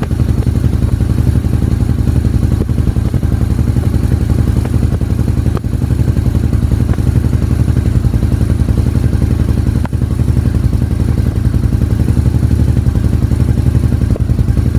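Honda XR250 Tornado's single-cylinder four-stroke engine idling steadily on its stand, freshly rebuilt and being listened to for a mysterious tec-tec ticking noise.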